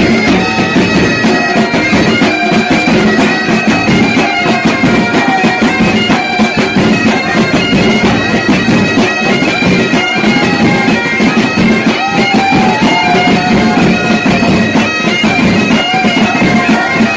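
Bagpipe music playing continuously: a stepping melody held over a steady lower drone.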